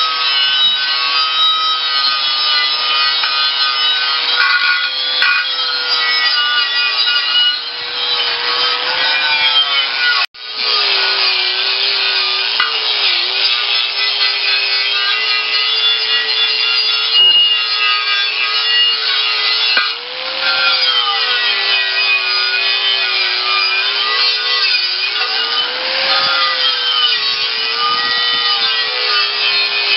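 Electric angle grinder grinding rust and old paint off a steel tractor wheel rim: a steady motor whine under a loud rasping scrape, its pitch sagging and recovering as the tool is pressed into the metal. It stops for a moment about ten seconds in, then runs on.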